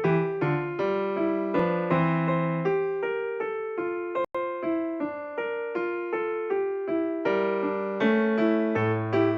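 Background music: a keyboard plays an even run of notes at a steady pace, with a very brief dropout about four seconds in.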